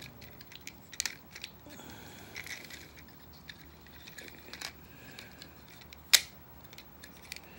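Hard plastic parts of a Transformers Titans Return Highbrow figure clicking and rattling as it is handled and its parts are moved, with light rustling between; the sharpest click comes about six seconds in.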